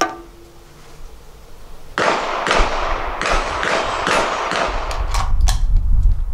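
A metal muzzle device clinks down onto a concrete bench with a short ring. About two seconds in, a loud rushing noise begins, broken by a run of irregular sharp cracks.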